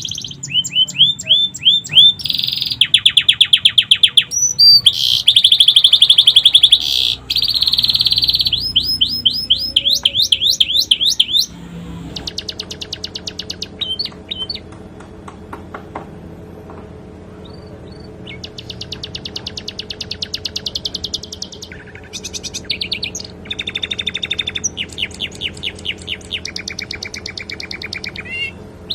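Domestic canary singing a long, fast song of rapid trills and repeated sweeping high notes, with phrases learned from a sikatan londo. About twelve seconds in, the song becomes quieter and a steady low hum runs beneath it.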